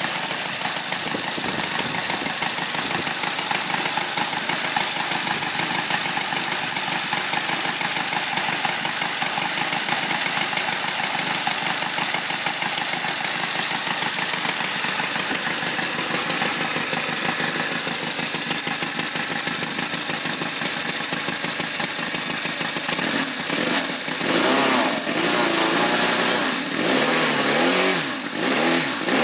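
Saito FG-57 twin-cylinder four-stroke gasoline model-aircraft engine running steadily, then revved up and down several times over the last six seconds. It runs properly again on a carburettor fitted with new diaphragms.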